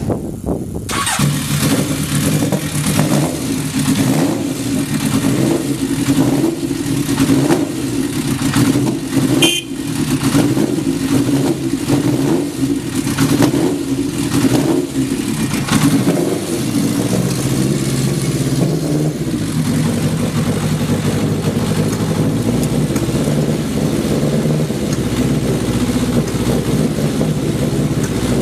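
Honda CB900F inline-four motorcycle engine catching on the electric starter about a second in, then blipped repeatedly, about once a second, before it settles to a steady idle in the second half. It runs evenly, with no unusual noises, as it would for an engine sold as starting well and idling steadily.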